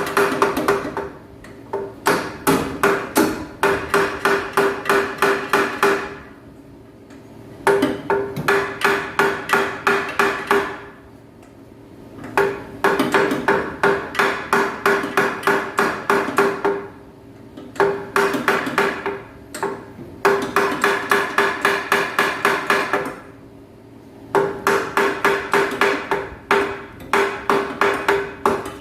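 Hammer striking a window AC's fan hub on the motor shaft to knock the fan loose, in runs of quick blows, about five a second, with short pauses between runs. A metallic ring carries through the blows.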